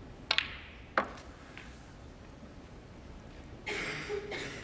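Snooker balls clicking: the cue tip strikes the cue ball and it clicks against the brown a split second later, then a second knock comes about a second in. A brief rush of noise follows near the end.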